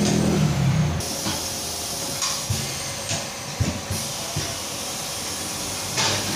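Computerised wheel balancing machine spinning a 17-inch alloy wheel and tyre under its lowered hood: a steady whirring hiss, with a few short knocks and clatters.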